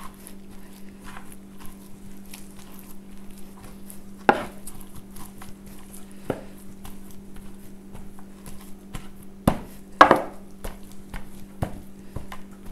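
Wooden mallet pounding roasted green plantain on a wooden board: irregular dull knocks and squashing taps, with louder thumps about four seconds in and twice near ten seconds. A steady low hum runs underneath.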